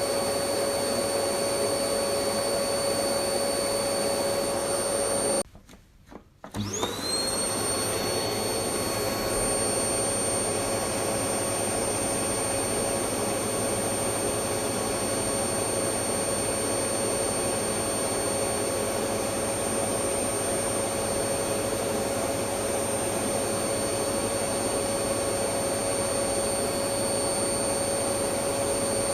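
Electric vacuum cleaner motor running with a steady whine and rushing air. About five seconds in it briefly cuts out, then comes back, its whine rising in pitch as the motor spins up to speed, and runs steadily again.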